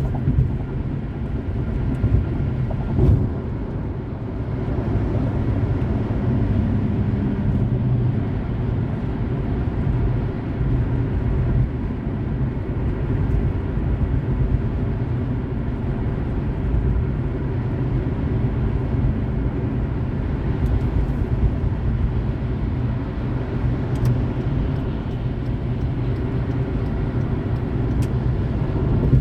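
Car driving on a highway: a steady, low rumble of road and engine noise, with a few faint clicks.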